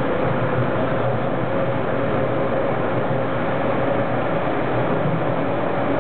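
Toronto subway train running at speed, heard from inside the front car: a steady rumble of wheels on rail with a single whine that slowly rises in pitch.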